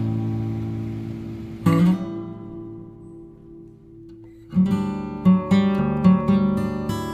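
Background music of acoustic guitar strumming chords. A chord is struck and left ringing and fading, then about halfway in a rhythmic strummed pattern starts.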